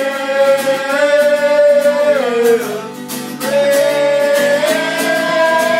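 A voice singing long held notes over strummed acoustic guitar. The note slides down about two seconds in, and a new note begins a second or so later.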